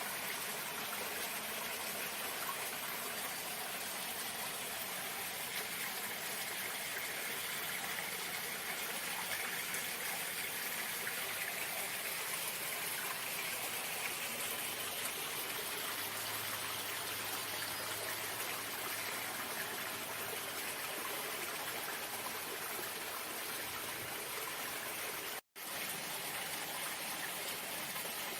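Running water, a stream or cascade, flowing steadily with an even wash of noise. The sound cuts out completely for a split second near the end, then resumes.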